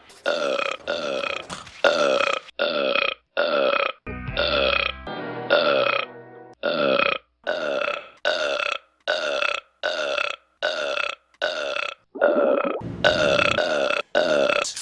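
A rapid string of short, loud cartoon-character burps, one after another about twice a second, nearly all alike. Between about four and six seconds in, a brief musical stretch sits among the burps.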